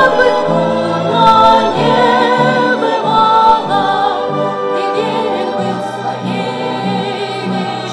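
Female vocal ensemble singing a war-themed song in close harmony over a low, pulsing instrumental accompaniment.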